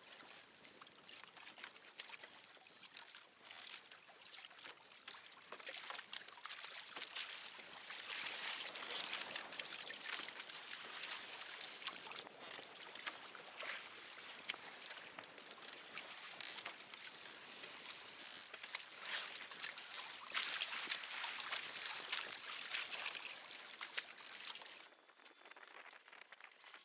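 Water splashing and washing against a kayak's hull, a continuous crackling wash that drops away abruptly near the end.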